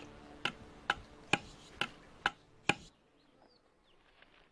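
A steady series of sharp ticks or knocks, about two a second, seven in all, stopping abruptly about three seconds in.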